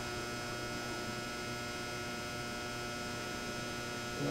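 Steady electrical mains hum, a buzz made of many fixed tones that does not change, with a short low bump near the end.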